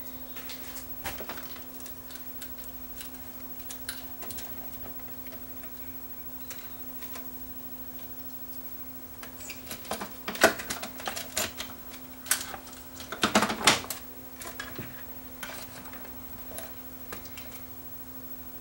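Clicks and rattles of small plastic parts as a CD changer's belt-driven drive assembly is handled and a substitute rubber belt is fitted, with clusters of clicks about ten seconds in and again around thirteen seconds. A steady low hum runs underneath.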